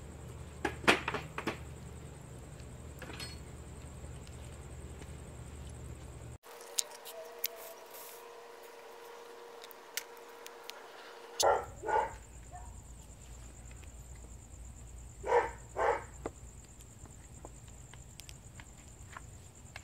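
A dog barking in quick pairs of barks, three times: about a second in, about halfway through, and a few seconds later. Under it runs a steady high chirring of crickets.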